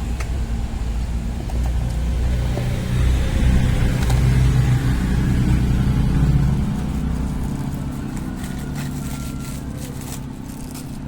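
A motor vehicle's engine running nearby, growing louder in the middle and then fading away.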